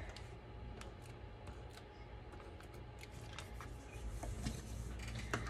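BIC Wite-Out EZ Correct correction tape dispenser drawn across paper, giving faint scratchy rasps and small clicks as the tape is laid down.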